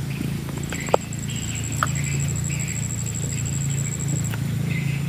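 Outdoor field ambience: a steady low hum under a high, fast-pulsing trill that starts about half a second in and stops about four seconds in, with two light clicks about a second apart.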